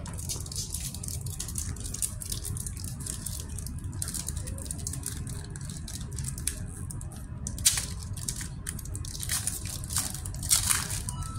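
Foil wrappers of Pokémon booster packs crinkling and tearing open while the cards inside are handled: a run of small crackles and rustles, with a couple of louder crinkles in the second half. A steady low hum lies underneath.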